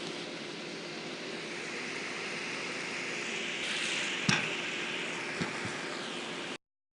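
Café room ambience: a steady low hum under a hiss that swells in the middle, with a sharp click about four seconds in and two lighter knocks after it. The sound cuts off suddenly near the end.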